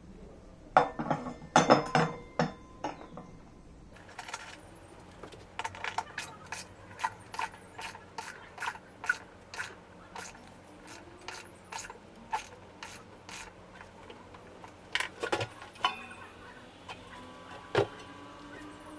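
A series of sharp mechanical clicks and clacks of tools and parts being worked during a washing machine repair: a quick burst about a second in, then roughly one click a second, another quick burst about three quarters through and a single loud click near the end.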